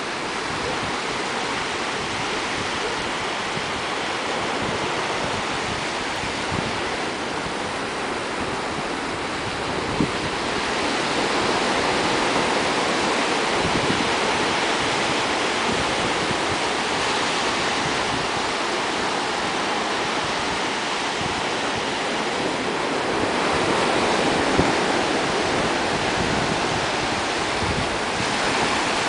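Ocean surf: small waves breaking and washing up a sandy beach in a steady rush, growing louder about a third of the way in and swelling again later on.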